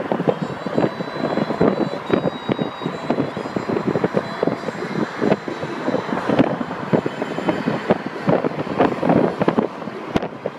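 Wind buffeting the microphone of a moving car, with the car's road noise underneath; the rumble gusts and swells unevenly throughout.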